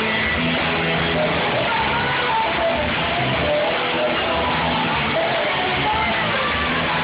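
Live band music: electric guitar played over drums and a low bass line, steady and loud.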